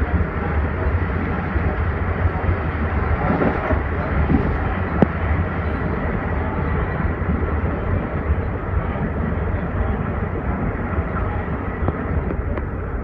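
Amtrak Acela train running, a steady low rumble and rolling noise with no let-up. A single sharp click about five seconds in.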